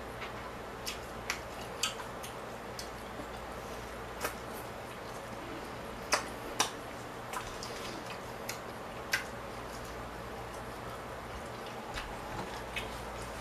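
Eating sounds at close range: irregular wet clicks and smacks of the mouth while chewing and biting meat off a rib, over a steady low hum.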